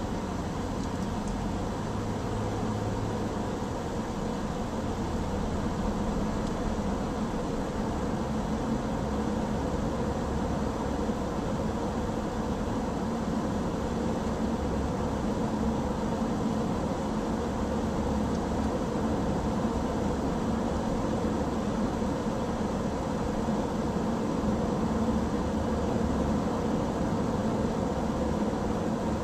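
Steady road noise of a car cruising: tyre rumble and engine hum at an even level, with a faint steady drone underneath.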